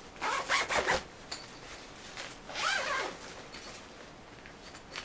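Zipper on a nylon bicycle wheel bag being pulled along in two short runs, one at the start and one about two and a half seconds in.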